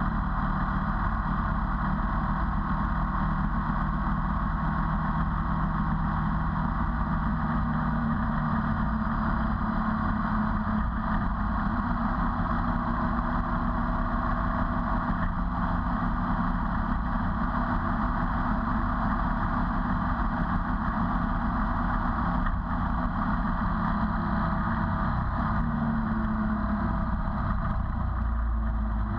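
Ducati 848's L-twin engine running steadily as the motorcycle cruises, mixed with road and wind noise. Its pitch rises briefly near the end and then drops.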